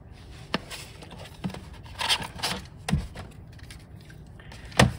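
Handling noises from a 120 film roll and a medium-format camera film insert being picked up and taken out of its case: a few light clicks and knocks with a short rustle around two seconds in, the loudest knock just before the end.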